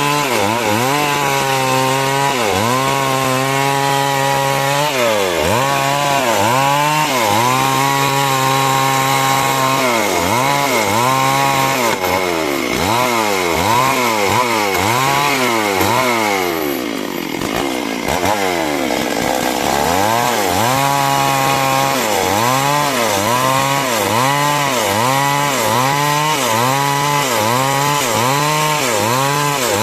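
Chainsaw engine running at high speed while cutting timber, its pitch dipping and recovering over and over as the chain bogs in the wood and frees again. About halfway through, the engine slows right down for a moment, then revs back up and carries on.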